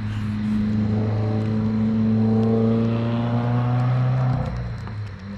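A motor vehicle's engine running close by with a steady low hum, growing louder and then dropping away about four seconds in.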